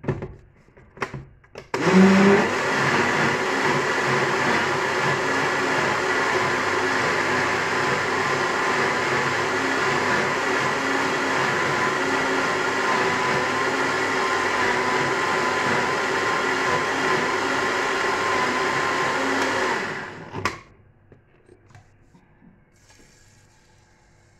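Countertop electric blender blending liquid jameed (rehydrated dried yogurt). A few knocks as the jug is set on its base, then the motor starts about two seconds in and runs steadily with a constant whine for about eighteen seconds before stopping abruptly. A single knock follows as the jug is lifted off.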